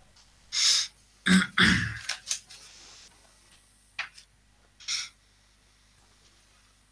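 A person clearing their throat about a second in, with a few short breathy noises and faint clicks around it.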